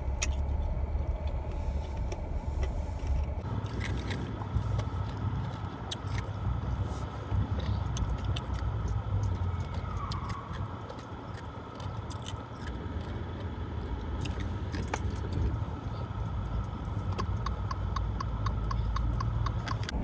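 Car driving slowly, heard from inside the cabin: a steady low engine and road rumble with scattered light clicks and rattles. In the last few seconds a turn signal starts ticking evenly, about three ticks a second.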